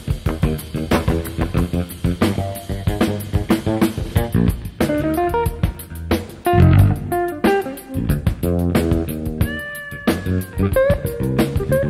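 Jazz-funk studio band of electric guitar, electric bass and drums playing an instrumental, with fast runs of plucked single notes over a steady drum groove. About nine and a half seconds in, one long held note sags slightly in pitch.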